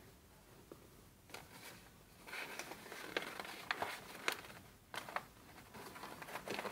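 Hand rustling and rubbing over a glossy paper magazine poster: soft paper scraping and crinkling with small clicks, starting about two seconds in and stopping just before five seconds, then a few more crinkles near the end.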